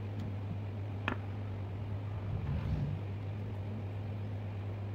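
A small knife blade cutting and scraping a short piece of PVC pipe, with one sharp click about a second in and a brief low rumble of handling near the middle, over a steady low hum.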